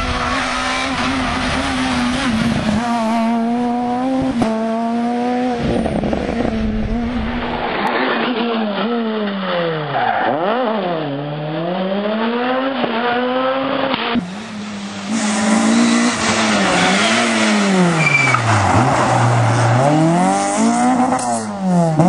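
Rally car engines at full stage pace, their pitch climbing and dropping again and again as the cars accelerate, lift off and change gear through corners. The sound changes abruptly about 8 and 14 seconds in, as one car gives way to another.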